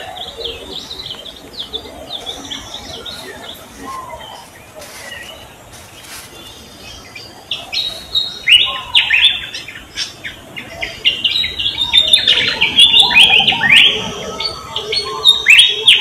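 Many small birds chirping: quick, high, downward-sliding chirps that come thicker and louder from about halfway through.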